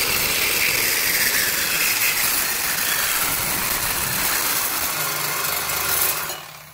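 Reciprocating saw running steadily, its blade cutting through a rusted exhaust pipe; the saw stops shortly before the end as the cut finishes.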